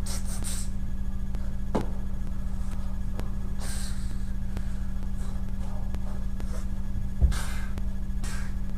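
Steady low hum, with a few short rushing noises and a single thump about seven seconds in.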